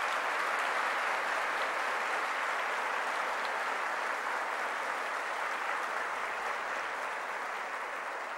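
A large audience applauding, a steady even clapping that slowly dies down toward the end.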